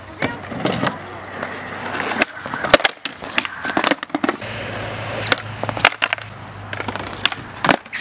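Skateboard on concrete: wheels rolling, and the deck clacking and slapping down several times in a missed varial heelflip.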